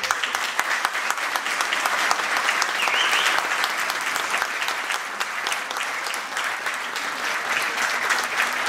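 Audience applauding: many people clapping in a dense, steady stream of claps.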